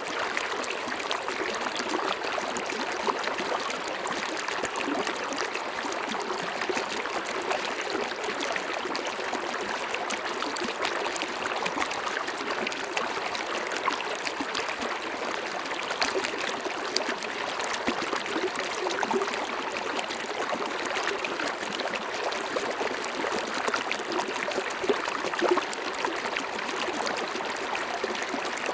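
River water running over rocks: a steady babble and rush with small splashes throughout.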